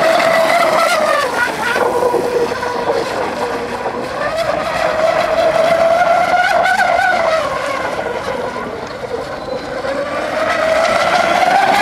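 Radio-controlled model speedboat's motor running flat out, a high-pitched whine that rises and falls in pitch several times as the boat speeds past and turns.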